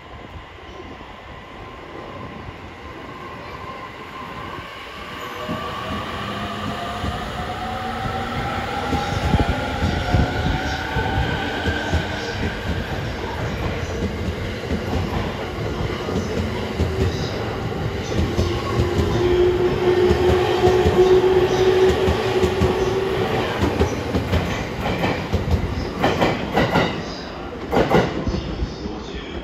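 JR East E231-1000 series electric train pulling away: its inverter and traction motors whine in several tones that rise in pitch as it speeds up, over a growing rumble of wheels on rail. Near the end come a few sharp clacks from the wheels.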